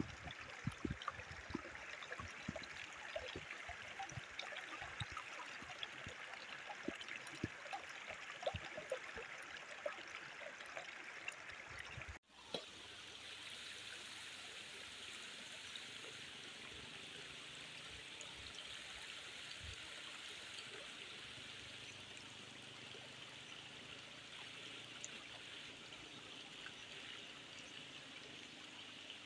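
Shallow stream water running steadily over rock. Scattered light clicks and taps come through the first half, and the sound cuts out for a moment about twelve seconds in.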